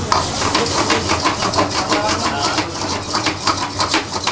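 Metal ladle scraping and knocking against a steel wok as chickpeas are stirred and tossed, about four strokes a second, over a steady low hum.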